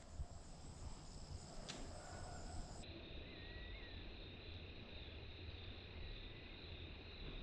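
Quiet field ambience with a faint, steady high chirring of crickets.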